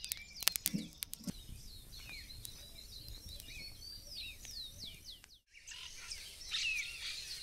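Birds chirping, many short downward-sliding chirps overlapping throughout. A few sharp clicks and knocks come in the first second and a half.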